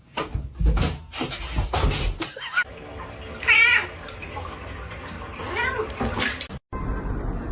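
A domestic cat meowing twice, short wavering calls, after a few seconds of knocking and rustling.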